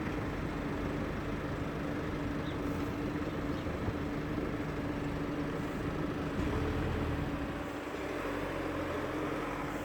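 A vehicle engine running steadily: a constant low hum with a rumble beneath, swelling slightly about two-thirds of the way through.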